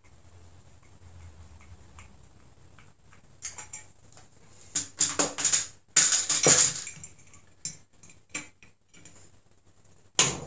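Metal wire bails of swing-top bottle caps clinking and rattling against a glass wine bottle and the loose parts on the tray as a cap is fitted. The clatter comes in irregular clicks, loudest in the middle, with one sharp click near the end.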